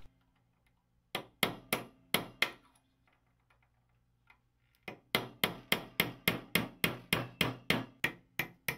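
Hammer striking a steel pin punch to drive the roll pin out of a sewing machine's balance-wheel shaft, metal on metal. About five taps a second in, a pause of about two seconds, then a steady run of taps at about four a second.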